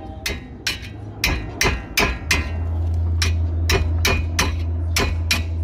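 Sharp, evenly spaced knocks, about three a second, like rapid hammer taps, over a steady low hum.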